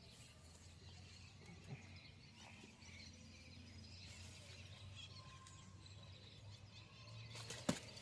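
Quiet outdoor ambience with faint bird chirps, and a single sharp click near the end.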